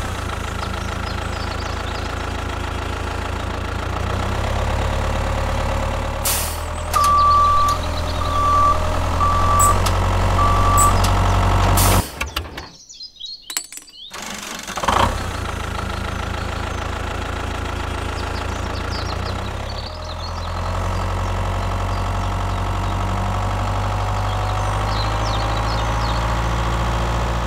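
Heavy vehicle engine running steadily, with four short reversing beeps a few seconds in. The engine sound cuts out for about two seconds near the middle, then starts again.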